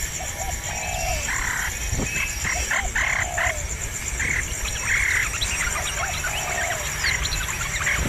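Birds calling: short low notes repeated every second or so, with louder, noisier calls higher up and scattered quick chirps, over a steady high pulsing insect buzz.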